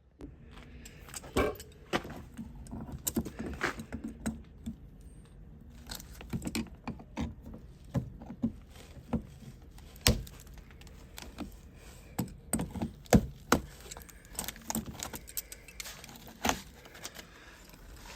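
Irregular metallic clinks and knocks of hand tools working at a seized car wiper arm, with a few sharper knocks between lighter taps.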